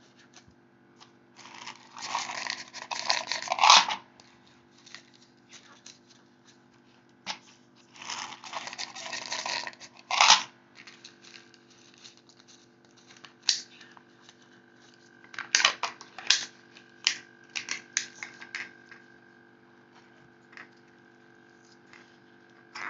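Dry beans being poured and pushed through a plastic water-bottle funnel into a balloon. There are two rustling, rattling bursts of a couple of seconds each, then scattered clicks and rustles as the beans are squished down.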